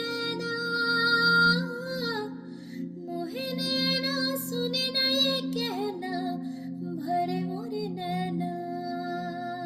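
A woman singing a slow melody solo in long held, lightly ornamented notes, with a short breath about two and a half seconds in, over a steady drone accompaniment.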